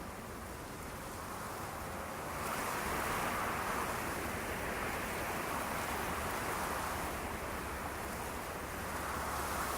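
Ocean waves washing on a shore, a surge building about two and a half seconds in and another near the end.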